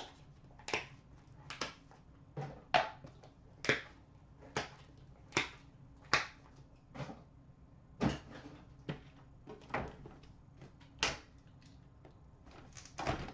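A string of short taps and rustles, roughly one a second, from trading cards and their packaging being handled between pulls.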